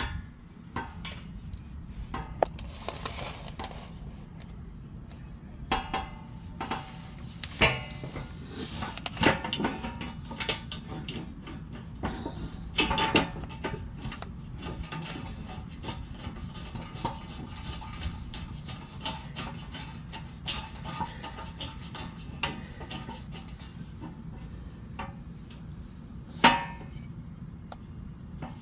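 Irregular metal clanks, clinks and scrapes of a skid plate and its bolts being handled and lined up under the truck, some strikes ringing briefly, over a low steady hum.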